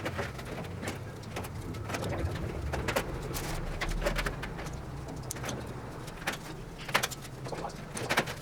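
Scattered light metallic clicks and taps as clecos are pushed into the aluminium boot cowl skins and firewall to hold them for fitting, over a steady low hum.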